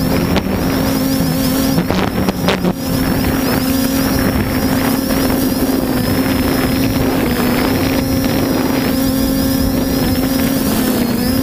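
Small quadcopter drone's motors and propellers humming steadily with a high, slightly wavering whine above the hum, and a few brief buffets of wind on the microphone about two seconds in.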